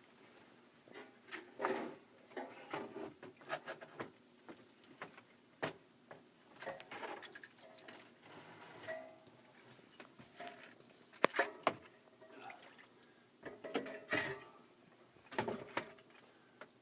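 Evaporator coil being worked out of an air handler cabinet: irregular metal scrapes, knocks and rattles as it catches and slides.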